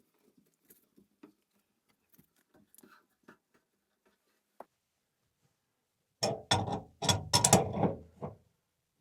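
Plumbing fitting work on a water heater's cold-water valve: a few faint ticks, then, beginning about six seconds in, about two seconds of loud rapid strokes and rasping, as the valve is worked onto its threads.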